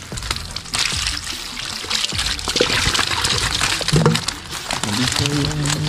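Water pouring from a metal pot into a wicker basket, splashing onto the catch of fish and draining through the weave. The pour starts about a second in and tails off near the end.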